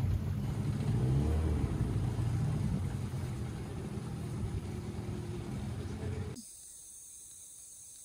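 Small boat's outboard motor running steadily, then cut off abruptly about six seconds in, leaving faint outdoor ambience.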